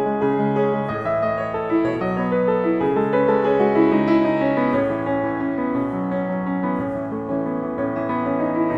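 Slow background piano music, each chord or note held for a second or two.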